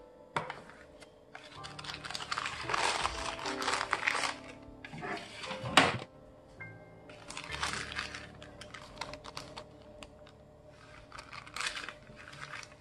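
Baking paper crinkling and rustling in several bursts as a slab of set chocolate bark is lifted out of its tray on the paper, with one sharp crack a little before the middle. Soft background music underneath.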